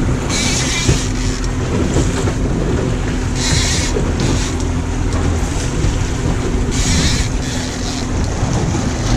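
A 90 hp outboard motor running steadily under the boat, with water churning and washing around the hull and stern that surges in three short hisses, and wind on the microphone.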